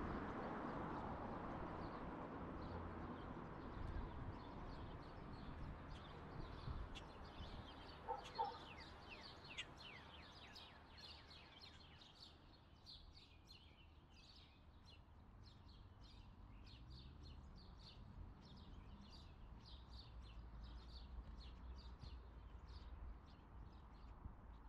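Small birds chirping and singing in many quick short notes, growing thicker after about ten seconds, over a low rumble of road traffic that fades away over the first several seconds. Two short tones sound about eight seconds in.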